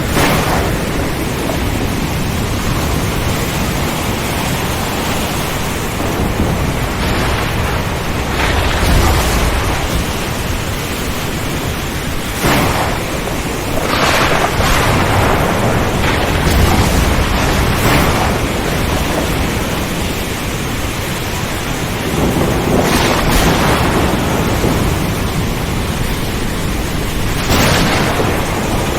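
A thunderstorm over the ocean: a steady hiss of heavy rain, surf surging every few seconds, and low rolling thunder.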